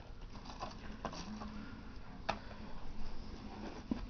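Fireworks packages being handled: faint rustling with a few sharp clicks, the loudest about two seconds in and another near the end.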